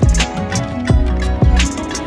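Background music with a steady beat, about two drum hits a second, over held instrumental notes.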